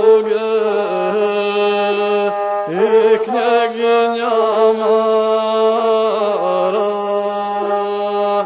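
Gusle, the single-string bowed folk fiddle of Serbian epic song, playing a nasal, chant-like line of held notes, each new phrase starting with a short slide in pitch.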